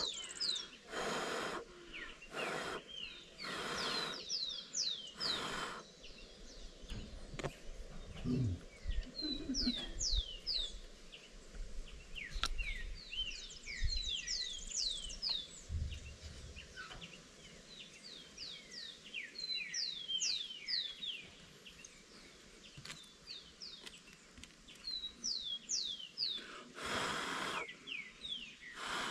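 Birds chirping, many short quick calls repeated all through. A few brief rushes of noise come near the start and again near the end.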